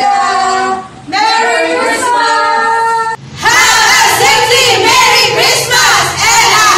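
A small group of women singing together. The singing breaks off briefly about three seconds in, and another group of women's voices takes up the song.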